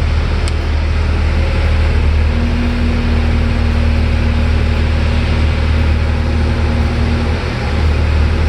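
Bobcat skid steer's diesel engine running steadily, with a steady tone joining about two seconds in and dropping out about seven seconds in. The newly fitted hydraulic drive belt runs without squealing.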